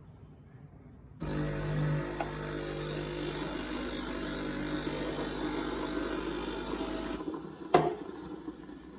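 Espresso machine running with a steady low hum and a rush of noise that starts suddenly about a second in and cuts off about seven seconds in, followed by a single sharp click.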